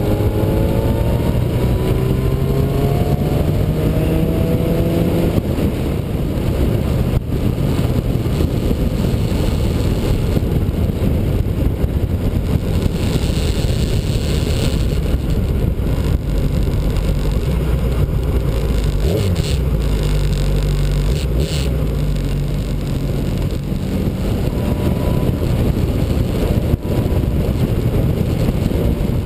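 Motorcycle engine running at road speed under heavy wind rush on the microphone, its note rising through the first few seconds as the bike accelerates, then holding steady.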